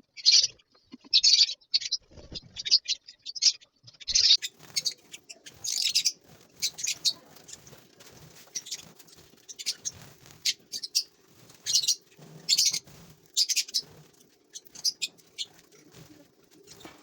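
A colony of lovebirds chirping: many short, shrill calls in irregular bursts, several birds calling over one another. A faint steady hum comes in about four seconds in.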